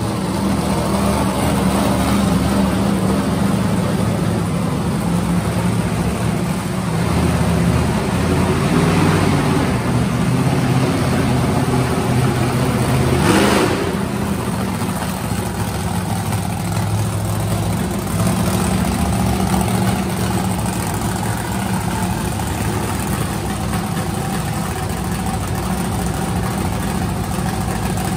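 Monster truck engines running at a low, steady idle and light throttle, with one brief louder rev about halfway through.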